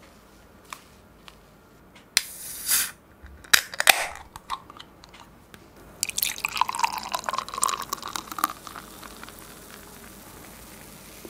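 Beer poured from a can into a small glass: a gurgling, crackling pour for about two and a half seconds, then a thinner stream and the foam fizzing quietly. Earlier there is a short burst of hiss and a few sharp clicks.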